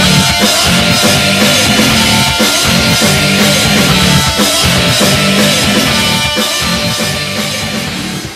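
Rock music with a driving drum kit and distorted guitar, fading out near the end.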